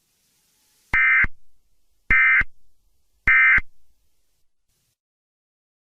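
Emergency Alert System end-of-message signal: three short buzzy digital data bursts of the SAME code, each about a third of a second long and a little over a second apart, marking the end of the alert.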